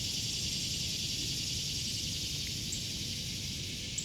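Steady chorus of cicadas, an even high-pitched buzzing.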